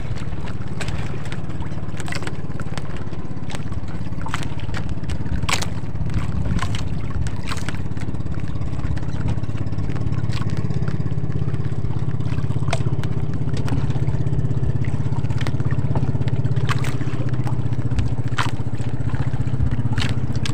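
Outrigger fishing boat's engine running steadily, a low hum that grows a little stronger about halfway through, with scattered sharp clicks over it.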